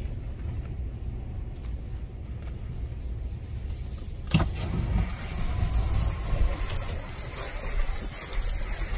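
Jeep Wrangler running with a steady low rumble, a sharp knock about four seconds in, then a louder hiss.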